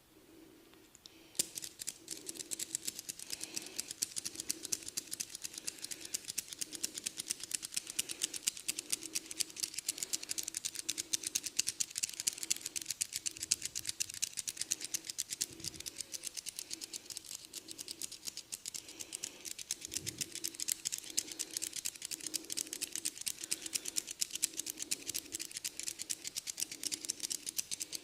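Fast, dense crackling taps and scratches of a barber's head massage working over hair and scalp, starting about a second in and going on without a break, over a faint low hum.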